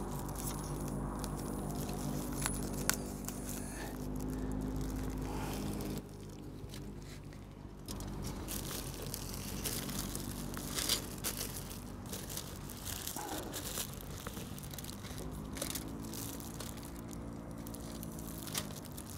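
A plastic turkey cooking bag crinkling and rustling as it is handled while thermometer probes are pushed into the bird, with scattered small clicks. A low steady drone is heard in the background for the first few seconds and again near the end.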